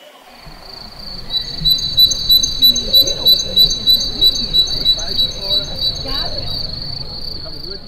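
Crickets chirping at dusk: a steady high trill, with a louder cricket chirping about three times a second over it that stops about a second before the end.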